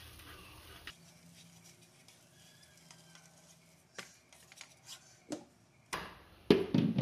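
Quiet kitchen with a few light clicks and taps of cooking utensils against a pan from about four seconds in, then a louder knock near the end.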